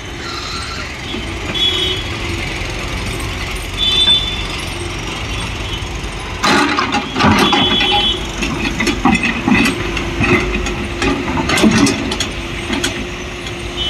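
Tata Hitachi tracked excavator's diesel engine running steadily with its hydraulics working, with a few brief high squeals. From about halfway through comes a run of clanks and knocks as the machine works among rocks and mud.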